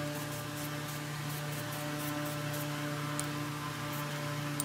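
Aerosol spray-paint can hissing in short passes as paint is sprayed onto a cast-iron bench vise, over a steady low electrical-sounding hum.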